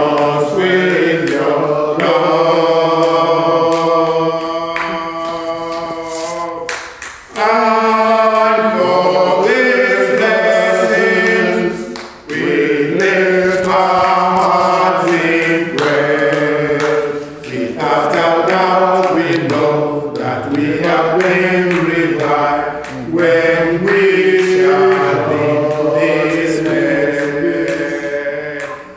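A choir singing in long held phrases, with brief breaks between phrases about seven and twelve seconds in.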